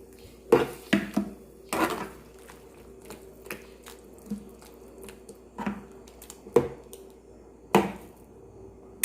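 A cooking utensil knocking and clacking against a pan of simmering food, about nine sharp, unevenly spaced strikes, over a faint steady hum.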